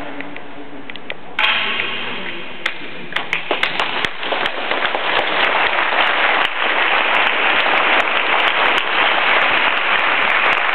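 Audience applause: scattered handclaps start about three seconds in and build into steady, dense clapping, after a sudden loud sound about a second and a half in.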